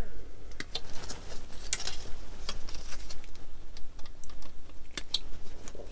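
Plastic model-kit sprue handled in gloved hands: light, irregular clicks and rattles of the plastic frame and parts.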